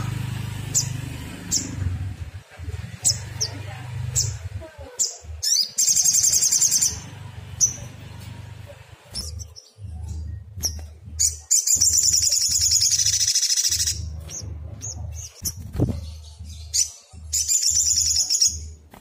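Sogon songbird calling: three bursts of fast, high trills, each one to two seconds long, with short sharp chip notes between them. A low hum runs underneath.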